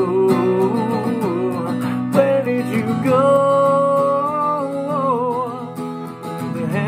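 Acoustic guitar strummed under a man's singing voice, which holds long, wavering notes, one near the start and a longer one from about three seconds in.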